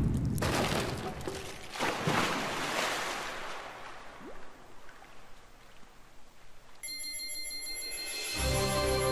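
Slot game sound effects: a noisy crash fades away in a few swells over the first six seconds, then a ringing electronic chime starts about seven seconds in, and a music loop with a bass line joins near the end.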